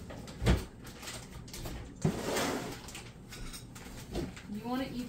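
Tableware being handled: a sharp knock, then a louder clatter about two seconds in with a second of scraping, and a few light clicks. A high voice rises near the end.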